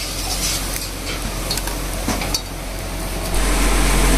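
Fire-roasted tomatoes squeezed and mashed by hand in a steel bowl: soft squelching with a few light clicks. About three seconds in, a louder, steady hiss from the wood fire under the cooking pans takes over.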